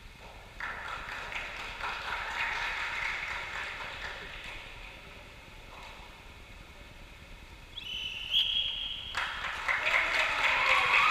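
Applause, then a referee's short whistle blast about eight seconds in that calls for the judges' flag decision, followed by louder applause and cheering.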